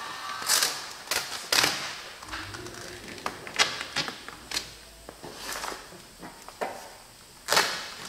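Vinyl wrap film being pulled and stretched over a car's hood corner. It crackles and rips in irregular sharp bursts as it lifts off and re-lays on the paint, the loudest about half a second in, around one and a half seconds in and just before the end.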